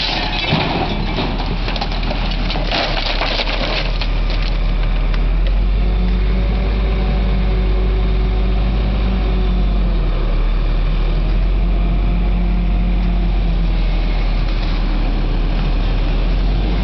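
A heavy vehicle's engine running steadily. Irregular crackling noise lies over it for the first four seconds.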